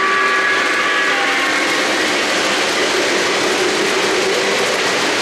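O-gauge three-rail model train cars rolling past on the track, a steady rumble and clatter of wheels on the rails. A locomotive's sound-system steam whistle, several tones at once, fades out about a second in.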